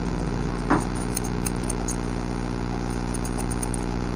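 Steel barber's scissors snipping hair, a scatter of light metallic clicks, over a steady background hum. A brief louder knock comes just under a second in.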